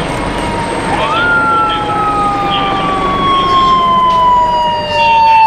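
Police motorcycle siren wailing: about a second in, its tone climbs quickly and then glides slowly down. A second, fainter siren tone is already falling under it, over steady background noise.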